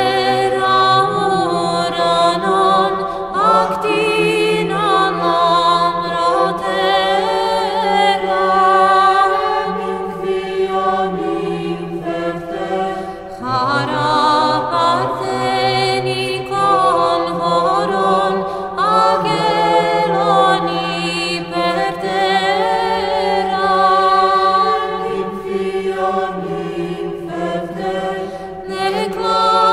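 An a cappella choir sings Orthodox church chant. Low voices hold a steady drone under a slow melody, and the drone shifts pitch about a second in and again about halfway through.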